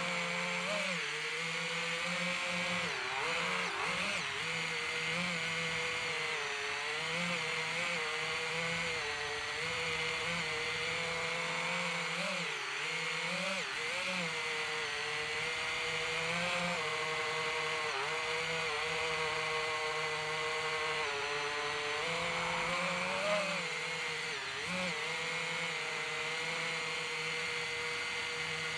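DJI FPV drone's motors and propellers whining steadily, the pitch wobbling up and down as the throttle changes.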